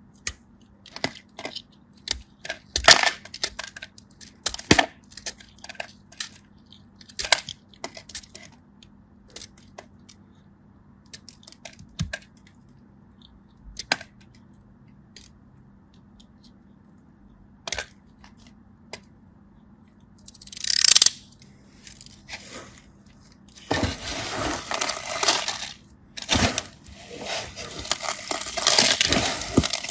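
Hardened kinetic sand clay being cracked and crumbled: scattered sharp cracks and crackles at first, then dense, continuous crunching for the last few seconds.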